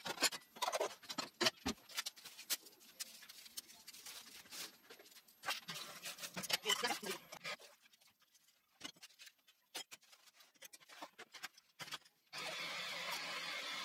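Dishes and kitchenware clinking and clattering at a kitchen sink, then about twelve seconds in the tap is turned on and water runs steadily into the sink.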